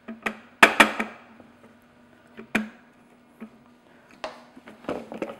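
A rubber spatula knocking against a plastic food processor bowl, and utensils set down on a stone countertop. There is a loud cluster of sharp knocks in the first second, a single knock about two and a half seconds in, and lighter clicks near the end, over a faint steady hum.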